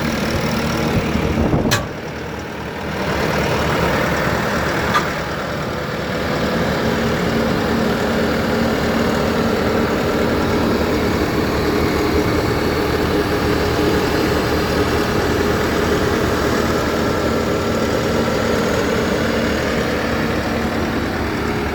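Diesel engine of a Bobcat T590 compact track loader running steadily. About two seconds in a sharp click comes and the engine sound drops briefly before building back up, and a lighter click follows about five seconds in.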